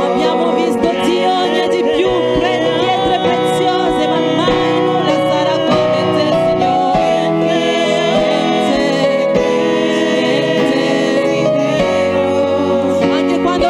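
Gospel worship singing: voices sing a slow, sustained melody over held keyboard chords.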